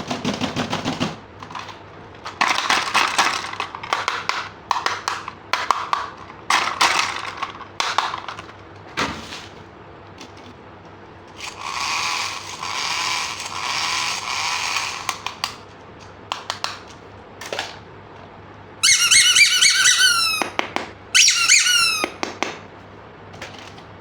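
Plastic toy parts and packaging being handled, with clusters of clicks and a few seconds of crinkling in the middle. Near the end come two short runs of quick, high falling chirps.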